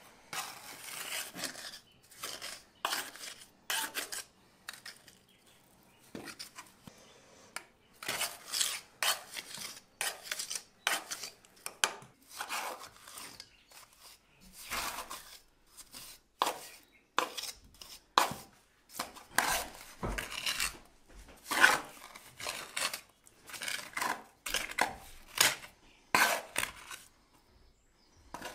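Steel trowel scraping and clinking on a metal mortar hawk as lime mortar is worked off it and pressed into the joints of a stone wall, in many short, irregular strokes.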